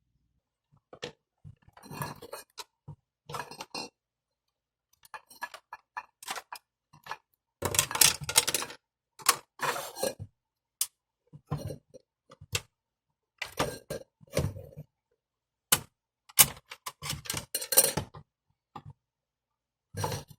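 Irregular clicks and clinks of small plastic and metal parts being handled, as the opened LED flashlight is worked on, in short bursts with pauses between.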